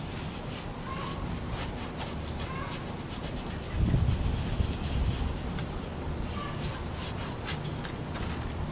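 Large round paintbrush scrubbing paint across a stretched canvas in quick, uneven strokes, about two or three short swishes a second. A low rumble swells about four seconds in.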